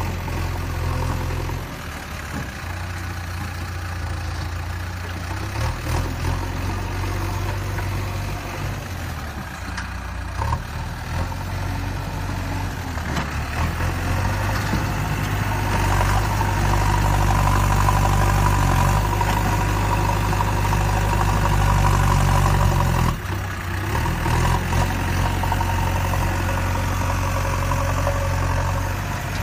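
A heavy vehicle's engine idling steadily, growing louder and working harder for several seconds in the middle, then dropping back abruptly near the end.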